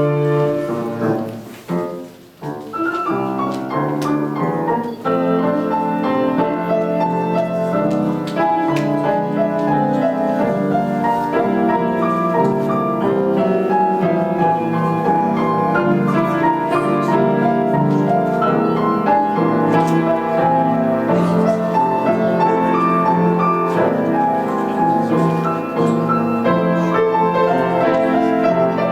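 Piano ensemble (two pianists) playing, many notes sounding together across the low and middle range; the music thins and drops away briefly about two seconds in, then continues steadily.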